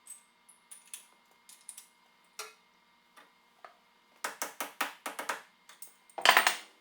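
Light clicks and taps, then a quick run of sharper clicks about four seconds in and a short, louder noise burst near the end.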